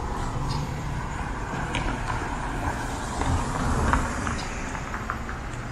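City street traffic noise at an intersection: a steady rumble of passing cars, swelling briefly about four seconds in, with a few short high ticks over it.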